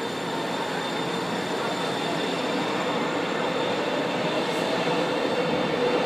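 São Paulo Metro Line 1 train pulling out of the station: a steady rumble of wheels on rail with a few held whining tones, growing gradually louder.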